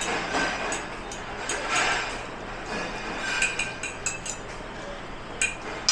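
Dishes and cutlery clattering and clinking, a string of short sharp clinks at uneven intervals over a steady background hum.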